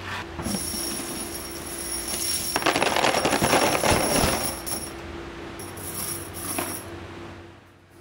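Hundreds of small plated metal parts poured from a steel wire-mesh basket, clattering and jingling into a plastic crate for about two seconds, starting a little over two seconds in.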